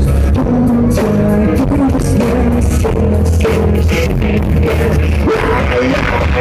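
Live rock band playing loud: electric guitar, bass and drums, with a singer's voice over them.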